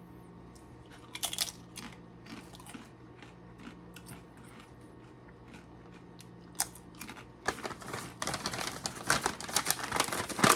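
Potato chips being bitten and chewed: a crunchy bite about a second in, a few light crackles, then a long run of loud crunching from about seven and a half seconds in.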